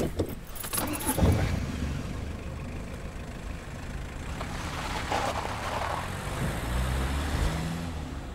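Car engine running and accelerating away, with road noise. There is a louder surge about a second in.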